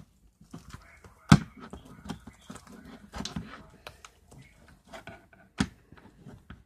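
Homemade slime being worked with a spatula in a bowl: a run of sticky, irregular squelching clicks, with two sharp knocks, one a little after the start and one near the end.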